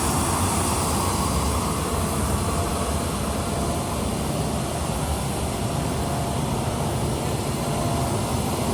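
Steady, even rumbling background noise with no distinct events.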